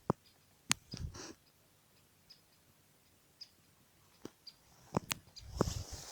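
A woodpecker knocking on a tree: a few sharp, widely spaced knocks, with faint short high notes between them and a rustle near the end.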